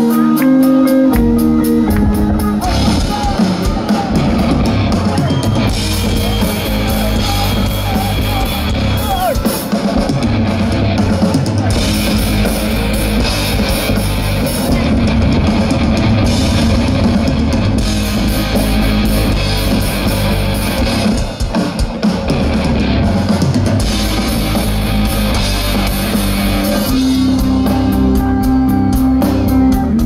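Live rock band playing loud through a concert PA, with drums and electric guitars. A held chord opens, and the full band with drums comes in about a second in.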